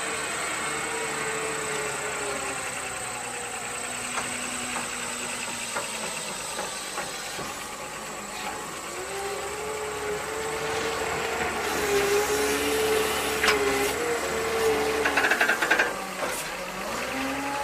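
Diesel engine of a Komatsu WA320-6 wheel loader (Cummins-built) running, its revs dropping and then climbing as the loader is driven and throttled up. Near the end the bucket drives into a dirt pile, with a rapid clatter of earth and stones.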